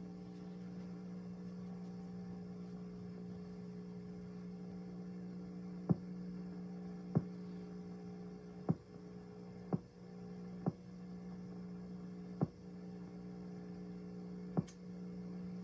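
Steady electrical mains hum with a few evenly spaced overtones, broken by seven sharp clicks scattered through the second half.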